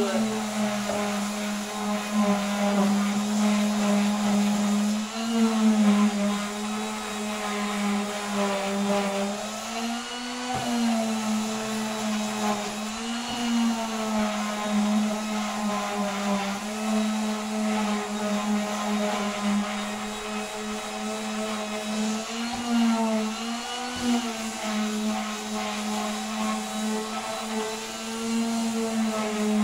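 Handheld electric sander running against a wooden board. Its motor hum is steady, with the pitch wavering slightly now and then as it is pushed along the wood.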